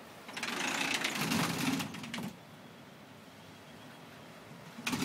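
Aluminium sliding door rolling along its track for about two seconds, then rolling again near the end.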